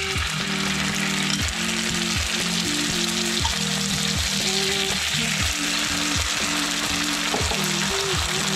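Chopped onion and curry paste sizzling steadily in a hot wok. Lo-fi background music plays underneath.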